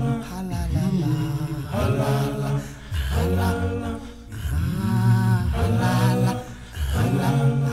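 Vocal music: slow, chant-like singing in long held phrases, each lasting a second or two with short breaks between.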